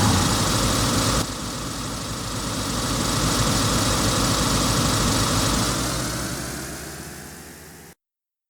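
A van's engine running with a steady low throb, swelling in the middle, then fading away and cutting off abruptly near the end.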